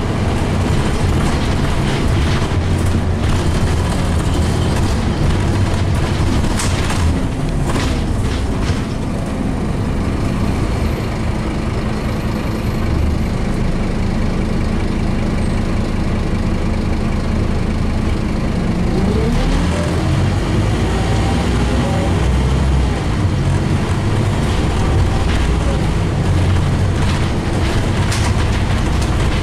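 Scania OmniCity N230UD double-decker bus heard from inside while driving: its nine-litre five-cylinder diesel gives a steady low rumble, with a few knocks early on and a whine that rises in pitch about two-thirds of the way through.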